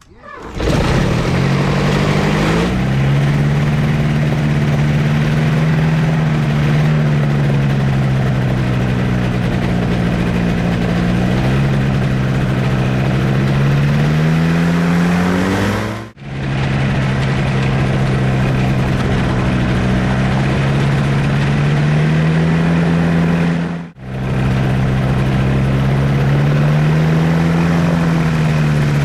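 A loud machine running with a steady hum that slowly drifts up and down in pitch. It drops out abruptly twice and picks straight back up.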